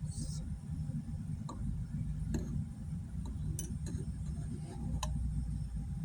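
A few light, irregularly spaced clicks and taps over a steady low hum.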